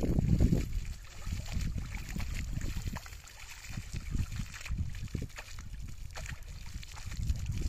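Water splashing and sloshing in a shallow pond as water is flung by hand, in uneven bursts with the loudest right at the start, over a low rumble of wind on the microphone.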